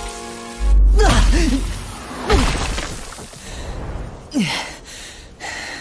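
Animated fight-scene sound effects: a heavy low boom about half a second in and a second thump a couple of seconds later, mixed with a person's short pained cries and a falling groan, as a character is blasted to the ground.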